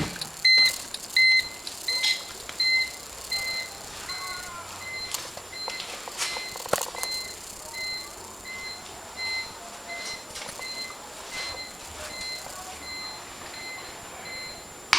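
Honda Civic's hazard-light flasher beeping in step with the flashing, a short high beep a little over once a second, growing fainter as it goes on. A few light clicks and knocks in between.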